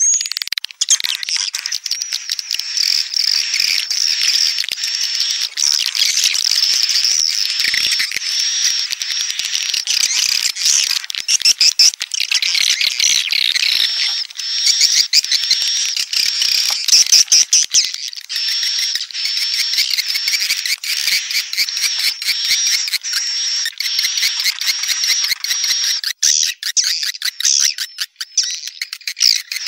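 Recorded swiftlet calls: dense, continuous high-pitched twittering and chirping with rapid clicks, the lure sound played to draw edible-nest swiftlets into a swiftlet house.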